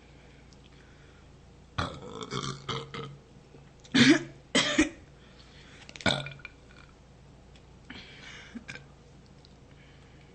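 A young woman burping several times in a row. The two loudest burps come close together about four seconds in, followed by a shorter one and a few fainter ones near the end.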